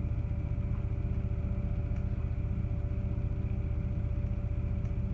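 Steady low machine hum with a few constant tones over it, unchanging throughout.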